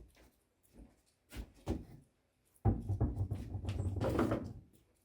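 Potted plants being handled and set back in place: a few light knocks, then a louder, rough, low-heavy handling noise lasting nearly two seconds.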